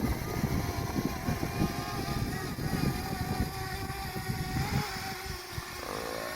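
Strong, gusty wind buffeting the microphone in heavy rumbling blasts, with a faint steady whine underneath.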